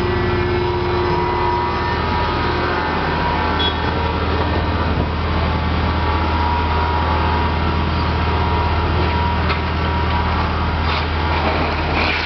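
Construction machine engine running steadily with a low, even drone; a few light knocks near the end.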